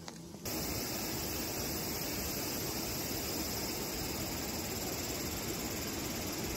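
Steady rushing of river water, an even hiss that starts abruptly about half a second in and holds at a constant level.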